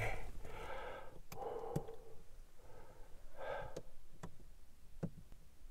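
Faint breathing and sighing close to the microphone, in two soft stretches, with a few sharp clicks in between.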